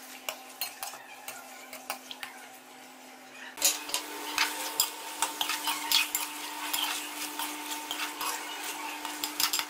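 Chicken pieces frying in oil in a metal karahi while a metal spoon scrapes and clinks against the pan as they are stirred. The sizzle gets louder about three and a half seconds in.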